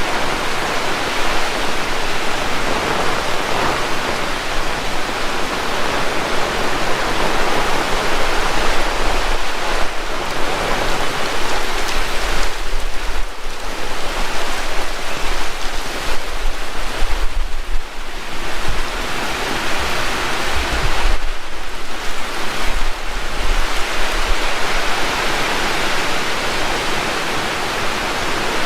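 Heavy rain falling steadily, a dense even hiss. Several times, low rumbles of wind buffet the microphone.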